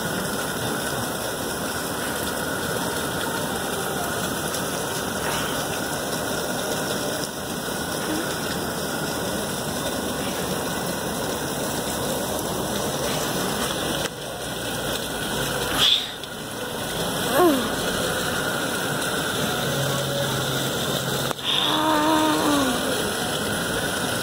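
Propane burner running steadily under a pot of scalding water, with a sharp click about 16 seconds in and a brief squeak a little later.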